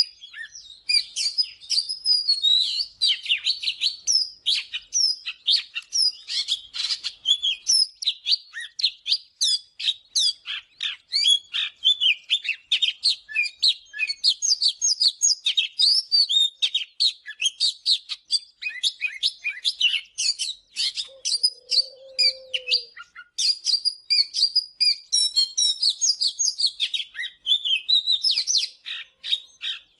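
Oriental magpie-robin singing: a continuous, fast run of varied high whistles, chirps and trills with no pauses.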